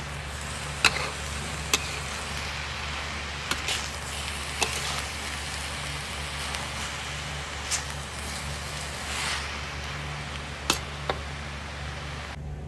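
Metal spatula scraping and knocking against a steel wok while glass noodles, carrot and minced beef are stir-fried: a sharp clink every second or two over a steady hiss and low hum. The hiss cuts out near the end.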